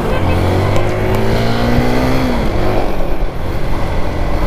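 A motorcycle engine running hard at high revs, loud. Its pitch climbs slightly, then drops about two and a half seconds in.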